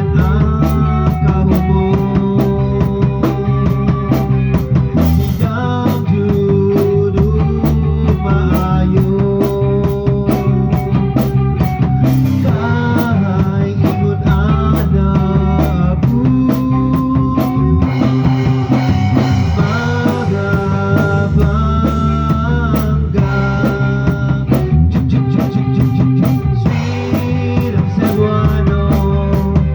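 Live rock band playing without vocals: a drum kit keeps a steady beat under held notes from the other instruments.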